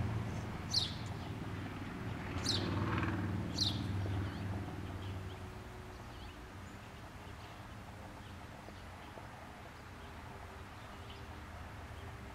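A bird gives three sharp, high, downward-sweeping chirps in the first four seconds, then fainter chirps, over a low steady hum that fades out about five seconds in.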